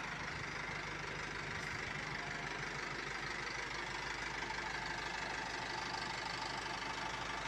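Isuzu Elf NHR's four-cylinder diesel engine idling steadily, an engine the seller calls healthy.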